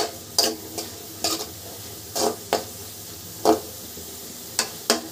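Metal spoon scraping and knocking against a metal kadhai in irregular strokes, stirring chopped onion and capsicum frying in butter and oil, with a low sizzle between the strokes.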